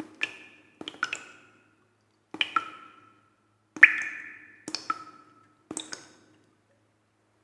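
Sparse struck percussion in the soundtrack music: short ringing notes, several of them quick double hits, coming roughly once a second at uneven intervals, each fading quickly.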